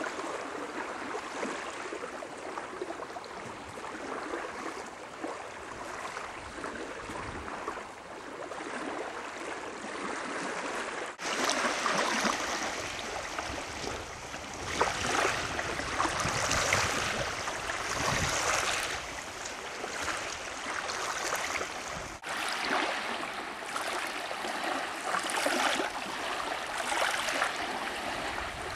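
Small waves lapping and washing over sand at the water's edge, a fluttering watery hiss. It changes abruptly about 11 s in, where it grows louder and splashier, and again about 22 s in.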